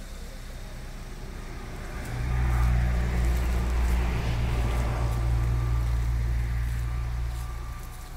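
A car engine running, a low steady hum that swells about two seconds in, holds, and fades away near the end.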